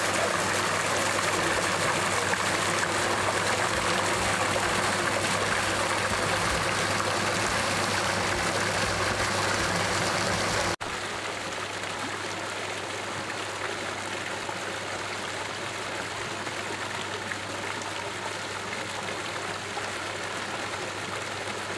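Steady rush of spring water pouring from an inlet into a small swimming pool, the water in the pool churning; about halfway through it steps down a little quieter.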